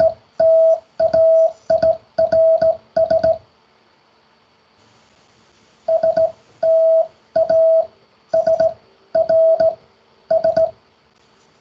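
Morse code sent by hand on a straight key: a steady mid-pitched sidetone keyed on and off in dots and dashes, with a light click at each make and break. A word is sent, then after a pause of about two and a half seconds it is sent again.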